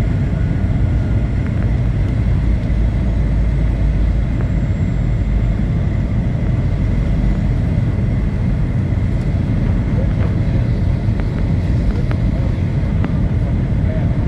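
Steady low rumble of jet airliner cabin noise on descent, the engines and rushing airflow heard from inside the cabin, with a faint high steady whine.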